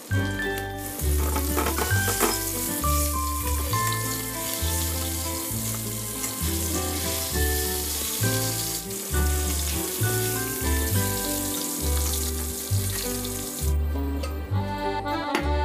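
Salmon head pieces frying in hot oil in a stainless steel wok: a steady sizzle. Background music with a steady bass line plays under it, and the sizzle stops near the end, leaving only the music.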